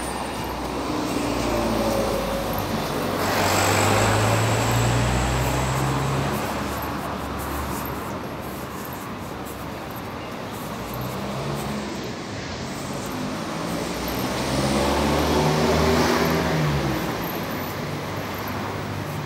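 Road traffic: two cars drive past one after the other, the first about four seconds in and the second a few seconds before the end. Each engine note swells up and fades away over a steady street hum.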